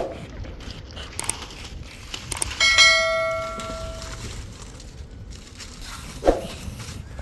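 A single metallic strike about three seconds in, ringing out with several clear high tones and fading over a second or so. Softer knocks come at the start and near the end.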